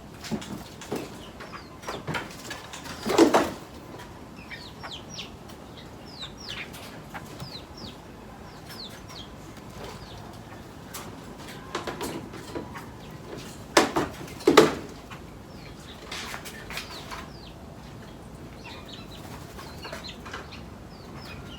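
Birds in an aviary: many short, high chirps scattered throughout, with a louder sound about three seconds in and two more a little before and around the middle of the clip.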